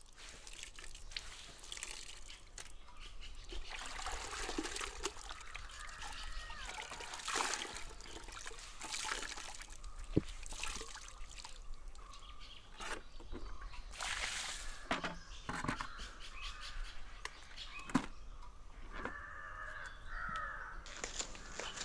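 Water splashing and trickling as clothes are rinsed in a bucket and wrung out by hand, with a couple of sharp knocks near 10 s and 18 s. Birds call in the background, most clearly near the end.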